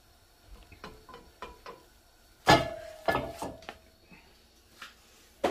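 Metal frying pan clattering on a stove grate: a few light clicks, then a loud knock about two and a half seconds in that rings briefly, two smaller knocks right after, and another sharp knock at the very end.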